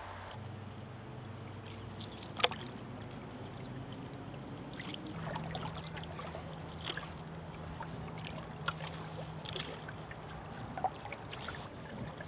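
Canoe paddling on calm water: soft trickling and dripping from the paddle strokes, with scattered light clicks and one sharper click about two and a half seconds in.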